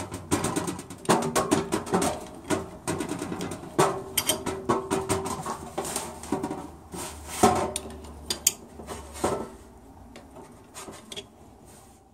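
Steel balls, cage and races of a new, tight-fitting CV joint clinking, knocking and scraping against one another as the balls are worked into place by hand, the joint knocking on a stainless steel sink. The clatter thins out after about nine seconds.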